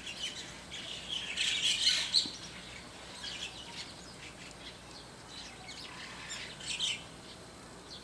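White-cheeked starlings calling in noisy, scratchy chatter: a loud run of calls from about one to two seconds in, scattered calls after, and another burst toward the end.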